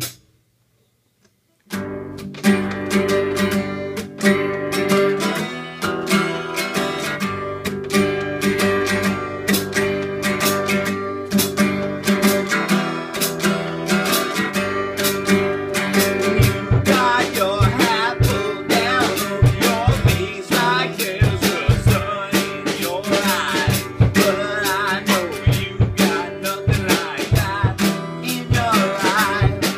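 Acoustic guitar strummed and picked in a steady rhythm, starting after a brief silence about two seconds in.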